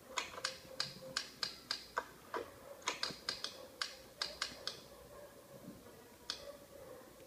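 Simulated manual-typewriter key strikes from the Hanx Writer typing app: an irregular run of sharp clacks, about three a second, then a pause and one more strike near the end.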